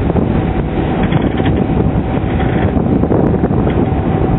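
Wind buffeting the microphone on a catamaran at sea: a loud, steady rumble, with a faint steady whine running underneath.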